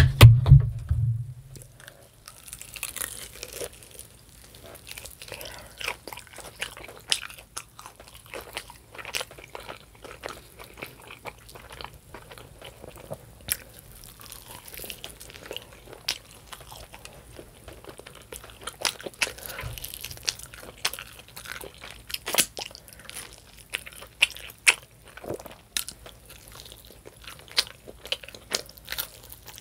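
Close-miked eating of roasted chicken wings: biting and chewing with many small wet clicks and crackles. There is a dull low thump at the very start.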